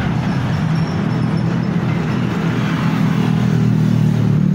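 Heavy road traffic: truck and car engines running at low revs in a slow-moving queue, a steady low hum that grows a little louder in the second half as vehicles move past close by.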